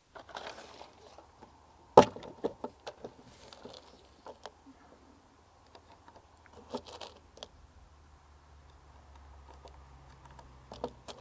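Small clicks and light metallic clinks of .22 rimfire cartridges being handled and loaded by hand, with one sharp click about two seconds in and brief rustles between.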